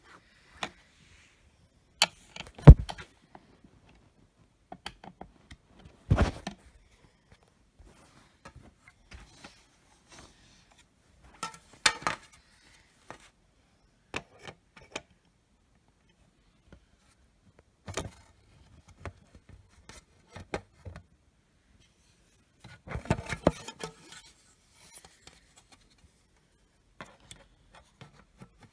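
Plastic housing and cover of an EST Genesis ceiling-mount speaker strobe being handled and fitted back together: scattered clicks, knocks and rubbing, the loudest knock about three seconds in and a busier run of clicks toward the end.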